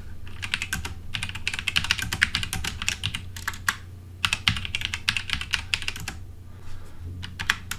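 Typing on a computer keyboard: quick runs of keystrokes with a short pause about four seconds in and a longer one near the end, over a low steady hum.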